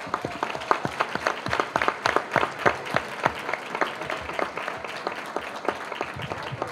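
Audience applause: many hands clapping irregularly, thinning out near the end.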